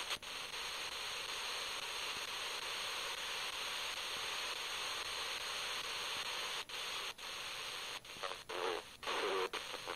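FM static hiss from a Tecsun portable radio's speaker while it is tuned between stations. Late on, the hiss drops out briefly several times as the dial is stepped up, and a station's voice breaks through faintly for a second or so.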